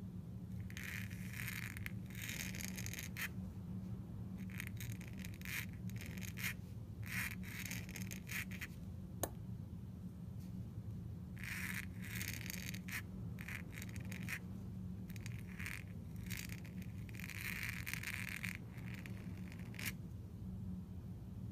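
Pointed steel dip-pen nib scratching across paper in copperplate strokes, in short irregular bursts with pauses between letters and for a few longer strokes. A steady low hum runs underneath.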